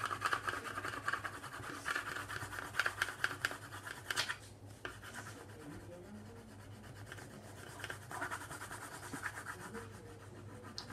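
Colour pencil scratching on paper in quick back-and-forth colouring strokes, with a short pause about four seconds in and a fresh run of strokes near the end.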